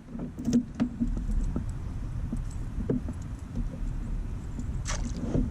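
Light clicks, knocks and rattles of a just-landed bass and its lure being handled aboard a kayak, over a steady low rumble that comes in about a second in.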